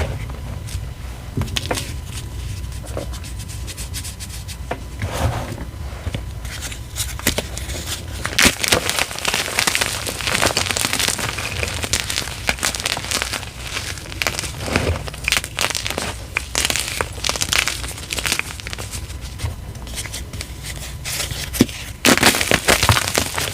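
Bits of gym chalk and loose powder being crumbled and crushed by hand: crisp crackling and crunching, sparse at first, then busy and dense from about eight seconds in.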